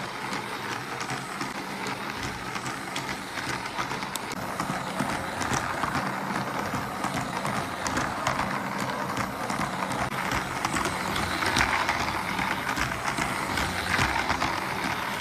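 Battery-powered toy train running around a circular plastic track: a steady whir and clatter from its small motor and wheels, louder in the second half.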